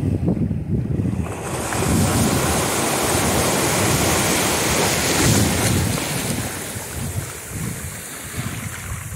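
A small sea wave breaks and washes up the beach. The hiss of surf builds about a second and a half in and fades away after about six seconds, with wind buffeting the microphone throughout.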